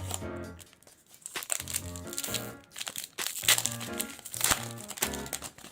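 Foil wrapper of a trading card pack crinkling and tearing as it is pulled open, over background music.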